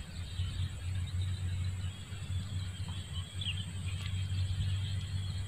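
Outdoor ambience: a steady low rumble with a few faint, short high chirps.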